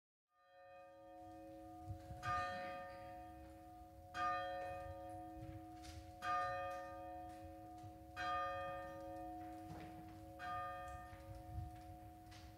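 A church bell tolling: five strokes about two seconds apart, each ringing on into the next.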